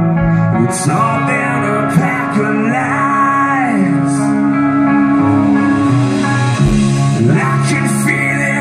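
Live rock band playing at concert volume, with sustained electric guitar notes that bend and glide in pitch over a steady bass line.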